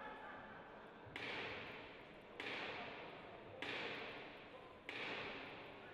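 Four sharp crashes at an even pace, a little over a second apart, each ringing off for about a second in a large reverberant hall.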